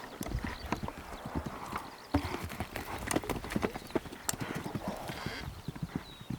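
Horse's hoofbeats: a quick, irregular run of thuds and knocks as the horse moves.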